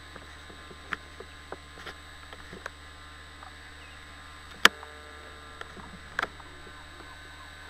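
Scattered small clicks and ticks over a low steady hum, with one sharp, louder click a little past halfway and a quick double click near the end.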